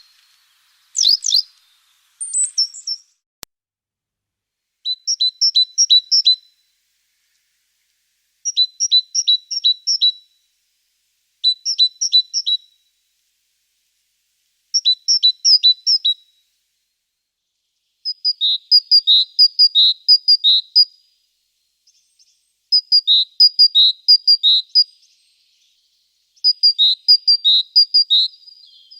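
A songbird singing phrases of quickly repeated high two-note calls, with pauses of about two seconds between phrases. A couple of different short chirps come in the first few seconds.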